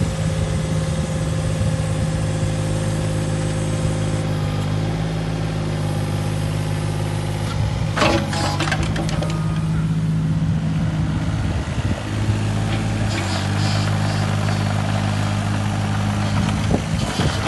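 Takeuchi TB216 mini excavator's diesel engine running steadily. About halfway through there is a short cluster of metallic clanks, and near the end a clatter and hiss rise as the machine moves on its rubber tracks.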